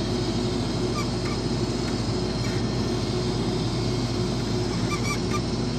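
Case IH combine harvester running steadily while unloading wheat into a truck, a constant even machine drone. A few faint high chirps come through about a second in and again near the end.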